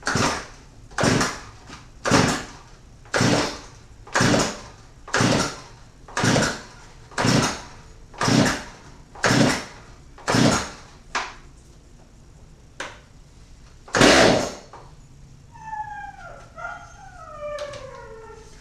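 Stihl MS290 Farm Boss chainsaw, fitted with a replacement MS390 engine, being pull-started: about ten rapid yanks on the recoil starter rope, about one a second, without the engine catching, then a pause and one harder pull. A few falling whining tones follow near the end.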